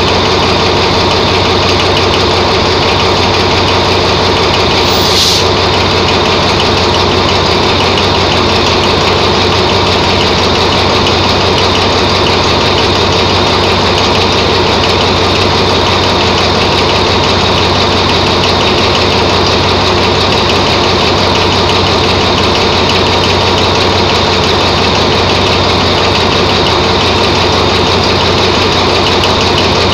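Diesel locomotive engine idling steadily, with a brief high hiss about five seconds in.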